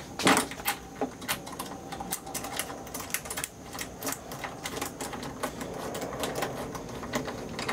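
Hand ratchet wrench clicking in short, irregular strokes as a headlamp mounting bolt is driven in and tightened, after a sharp knock at the start.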